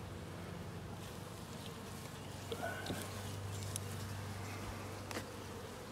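Honeybees humming over the open frames of a hive, a steady low drone. A few light clicks sound over it.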